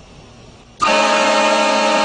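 A train horn fitted to a car sounds one loud, steady blast that starts suddenly about a second in.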